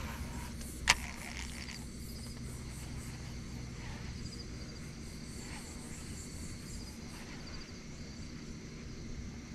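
Insects chirping in short high trills every couple of seconds over a steady low hum, with one sharp click about a second in.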